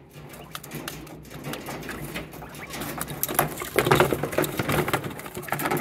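A quail pecking and scratching at feed in a plastic feeder and tub: a quick, uneven run of beak taps and scratchy clicks on plastic, louder in the second half.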